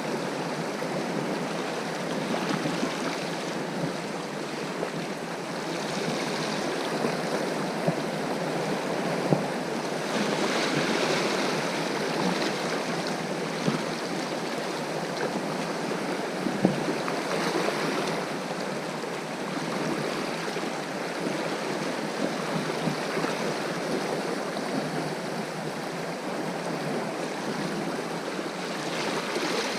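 Sea waves washing steadily over a rocky shore, swelling and easing every few seconds, with a few faint knocks.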